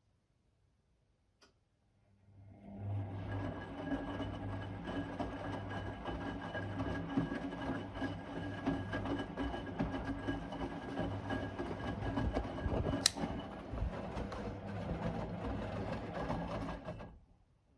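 Blomberg WA391 washing machine's motor starts after a faint click, runs with a steady hum for about fifteen seconds and then stops abruptly. There is one sharp click partway through.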